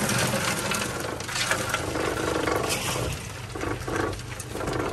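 Live crawfish clicking and scraping on a stainless steel sorting table as they are spread out by a gloved hand, with many small sharp clinks, over the steady hum of the crawfish boat's engine running.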